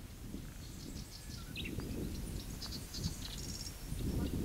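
Rural outdoor ambience: a low, uneven rumble of wind on the microphone with scattered short, high bird chirps.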